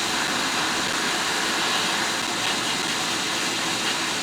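Steady hiss of a Quick 861DW hot air rework station blowing at an airflow setting of 60, heating the audio IC to solder it onto the logic board.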